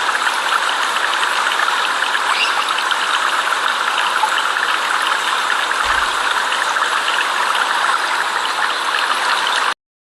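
Steady flowing water, a stream or cascade running without pause, cutting off suddenly near the end.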